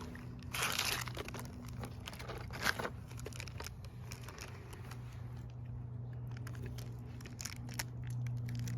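Plastic toy packaging crinkling and rustling in scattered bursts, with small clicks, as the little toy packs are handled and opened, over a steady low hum.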